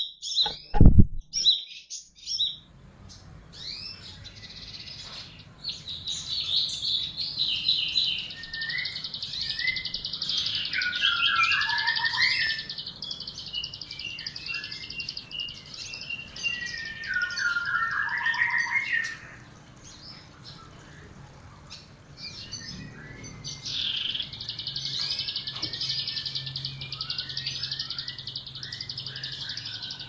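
A mix of small songbirds in an aviary chirping and twittering in a dense, high-pitched chatter, with a louder song phrase that steps down in pitch twice, around a third and two-thirds of the way through. In the first two seconds a few loud low thumps come as a bird flutters past right by the microphone.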